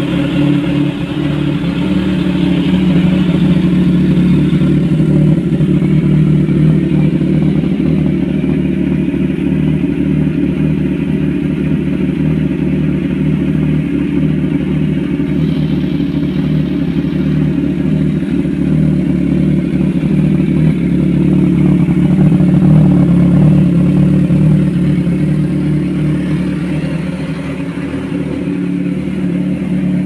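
Kawasaki Ninja 1000SX inline-four running steadily at idle, exhausting through an SC Project screen-type slip-on muffler with a rumbling exhaust note.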